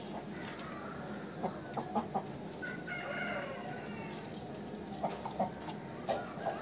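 Aseel rooster clucking: a few short, sharp clucks about one and a half to two seconds in and again near the end, with a brief higher-pitched call in between.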